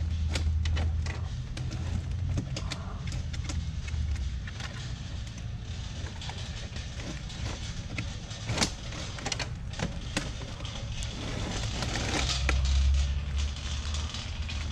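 Stacked black plastic nursery pots and trays clattering and clicking as they are pulled around in a wire-shelved metal rack, with a sharper knock about eight and a half seconds in. A low hum sits under the start and returns near the end.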